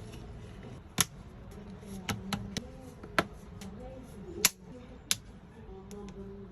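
Sharp clicks and taps of small hard smartphone parts and tools being handled, about seven, coming irregularly.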